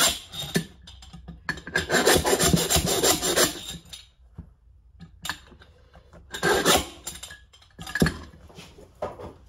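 A homemade slide hammer worked inside the metal outer tube of a 1977 Yamaha XT500 front fork to pull out a stuck old fork seal: stretches of rasping, scraping strokes of metal on metal with sharp knocks as the weight strikes, twice broken by pauses.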